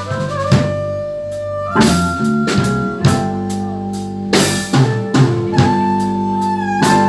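Live blues band playing an instrumental passage between vocal lines: held, sliding guitar notes over bass and a drum kit keeping a steady beat.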